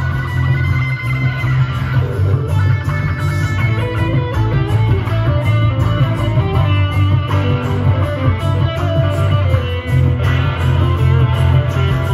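Instrumental passage of live music: an amplified acoustic-electric guitar played over a heavy, steady bass line and an even beat, with no singing.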